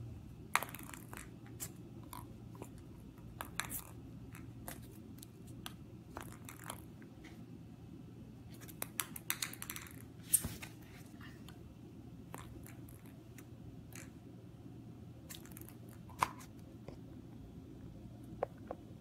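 Light, irregular clicks and taps of a ping pong ball hitting and bouncing on a hardwood floor as it is batted back and forth, over a faint steady low hum.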